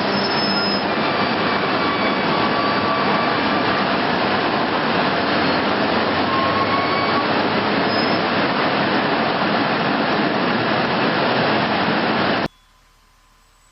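Loud, steady aircraft roar with a few faint whistling tones in it. It cuts off abruptly near the end.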